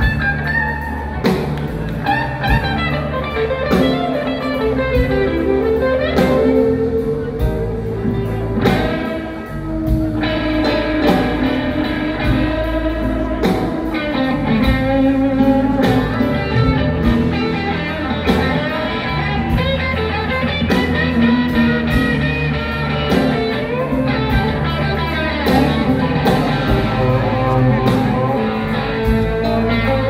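Blues band playing live: electric guitar over keyboard, bass guitar and drum kit, with steady drum hits throughout.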